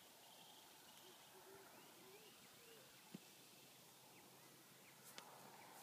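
Near silence: faint outdoor ambience, with a few faint chirps in the first half and two soft clicks, about three and five seconds in.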